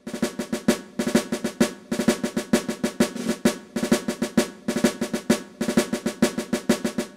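Intro music of rapid snare drumming, played as fast rolls in short phrases with brief breaks between them.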